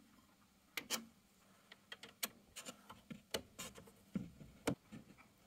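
Faint, scattered metal clicks and ticks of a long Allen key working a screw loose in the Bambu Lab P1S 3D printer's bed area.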